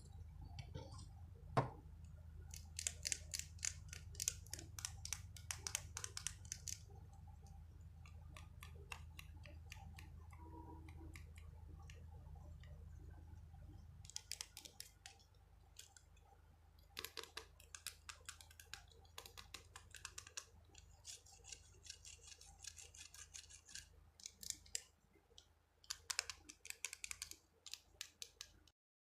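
Close-up ASMR handling of a small object: quick runs of tapping and scratching clicks in bursts of a second or two, with short pauses between, over a low steady hum.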